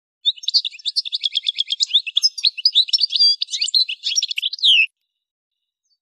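Algerian goldfinch singing one long phrase of rapid, high twittering notes that lasts about four and a half seconds and ends in a downward-sliding note.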